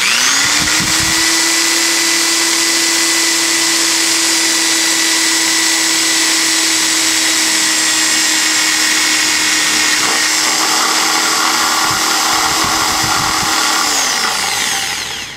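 Electric drill boring into a plastic skull prop. The motor speeds up at the start, runs at a steady pitch for about fourteen seconds, then winds down near the end. The cutting noise grows coarser from about ten seconds in.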